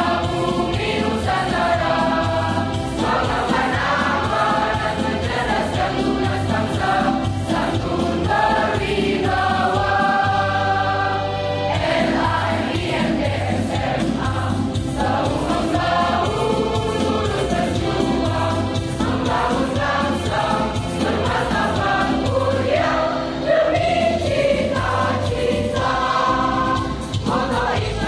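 Large school choir singing together in a sustained song.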